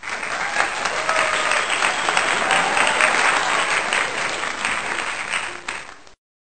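Crowd applause: a dense clatter of many hands clapping, which fades near the end and cuts off abruptly about six seconds in.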